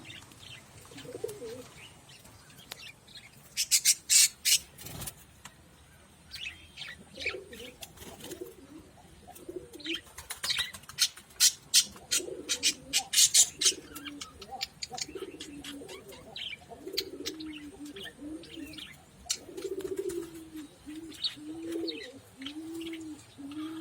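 Pet budgerigars chirping, with bursts of sharp, loud chirps about four seconds in and again from about ten to fourteen seconds in. Low, repeated cooing notes run under them and become a steady series of about two a second near the end.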